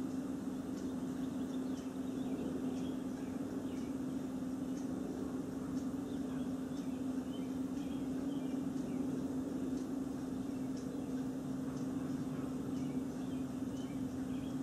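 Ambient room tone: a steady low hum under a soft hiss, with faint bird chirps now and then.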